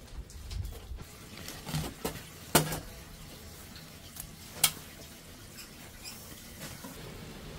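A kitchen knife and green onions knocking against a stainless steel tray: a few sharp metallic clinks, the two loudest about two and a half and four and a half seconds in, as the onions are trimmed and laid in the tray.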